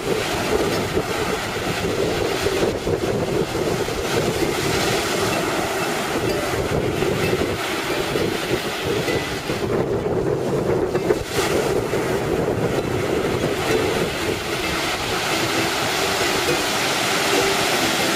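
Wind rushing over the microphone and surf breaking on the shore, a steady loud rush throughout, with a ukulele being played faintly underneath.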